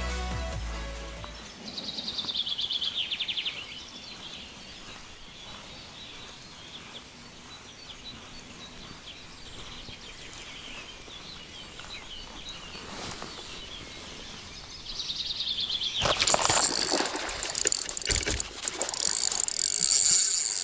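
Background music fading out in the first second, then faint outdoor quiet with a songbird's quick descending trill a couple of seconds in and again briefly past the middle. About three-quarters of the way through, a louder rattling whir starts and keeps on: a Shimano Stella 4000 spinning reel being cranked fast to retrieve a lure.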